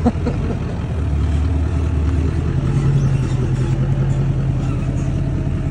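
GMC Sierra Denali HD pickup's engine running as the truck rolls slowly past, its note stepping up to a higher pitch about two seconds in. A brief knock right at the start.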